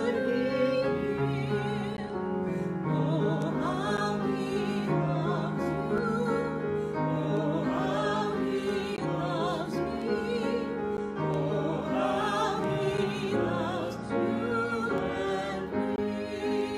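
A woman singing a slow hymn solo with vibrato, accompanied by an upright piano.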